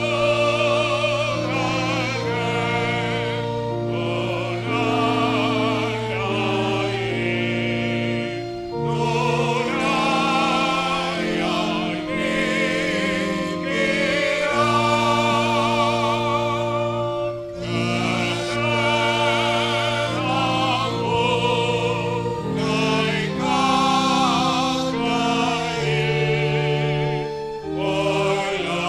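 A church choir sings a Tamil Christian song with a violin ensemble, over steady held low chords.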